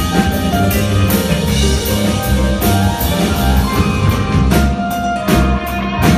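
A live four-piece band of piano, guitar, bass and drum kit plays a fast rock arrangement, with frequent crashing cymbal hits over the drums.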